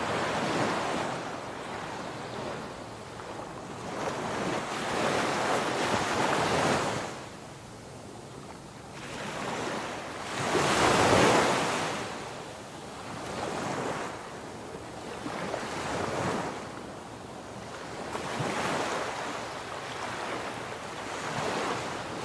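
Sea surf: waves washing in one after another, the sound swelling and fading every three to five seconds, with the biggest surge about ten seconds in.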